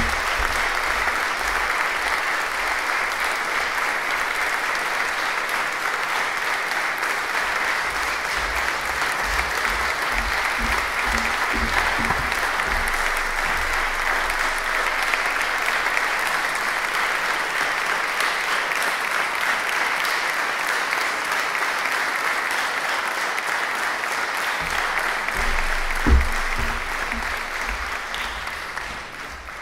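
Audience applauding steadily, dying away near the end, with a single low thump about 26 seconds in.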